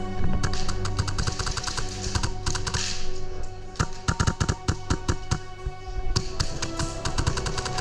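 Airsoft guns firing in quick bursts of sharp clicks over background music with steady held tones.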